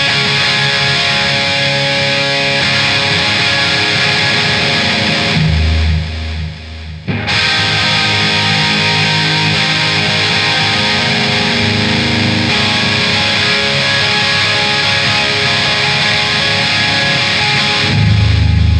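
Instrumental passage of a heavy rock song, led by electric guitar with a full band behind it. About six seconds in, the band drops out briefly to a low held bass note, then comes back in full.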